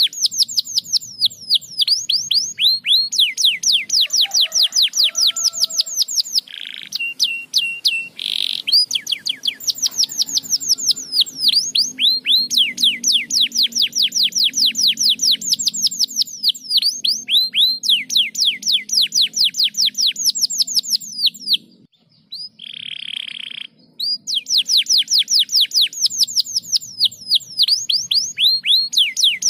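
Domestic canary singing: long rapid trills of high falling notes, several a second, broken by a few short buzzy held notes and one brief pause.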